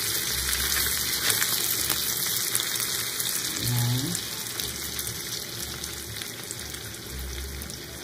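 Chicken adobo sizzling in an electric skillet as its juices cook down, with a metal spoon clicking against the pan as the pieces are stirred and turned.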